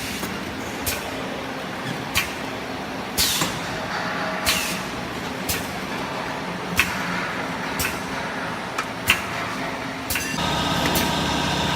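Automatic perfume bottle filling and crimping machine cycling, with sharp mechanical clacks about once a second over a steady running noise. Near the end a steady hum with several tones starts up.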